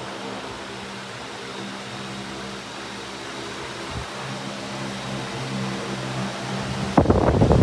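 Electric wall fan running: a steady motor hum with several held tones under a hiss of moving air. About seven seconds in, loud rushing noise of its airflow hitting the microphone sets in.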